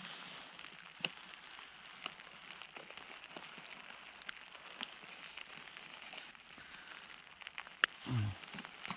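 Sleet and ice pellets ticking irregularly on an iced-over hammock tarp over a faint steady hiss.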